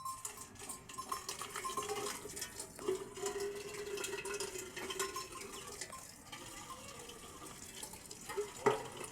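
Water running and splashing, with small clinks and knocks throughout and one sharper knock near the end.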